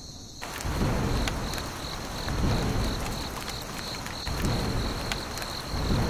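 Steady rain hiss that comes in about half a second in, with several low rolls of thunder.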